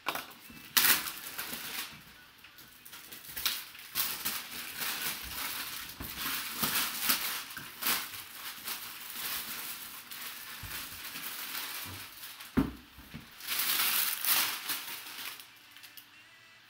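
Cardboard packaging being handled: a boxed helmet is slid out of its white cardboard outer box, with irregular scraping, rustling and sharp cardboard knocks and some crinkling of wrapping. There is a loud knock about a second in, another near the end, and a spell of heavier rustling just after it.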